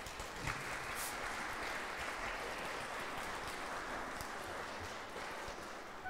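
Concert-hall audience applauding, a dense, even clapping that tapers off near the end.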